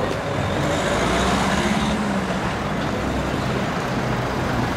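Steady city traffic noise, with a road vehicle's engine humming close by.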